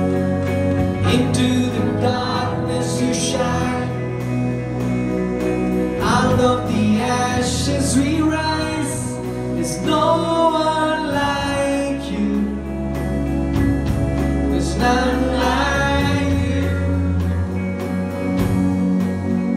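Live worship band playing a song: drum kit, electric bass, acoustic and electric guitars and keyboard, with a voice singing melodic phrases over them.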